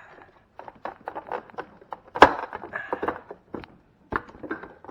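Hard plastic parts of a Samsung refrigerator ice maker knocking and clicking as the unit is handled and pushed into its housing, with one sharp knock about two seconds in.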